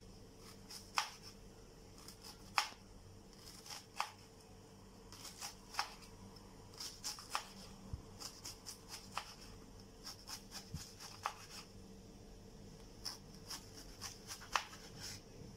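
Chef's knife slicing red cabbage on a wooden cutting board: short crisp crunches and knocks of the blade on the board. They come about once a second at first and quicken to a faster, uneven chopping from about five seconds in.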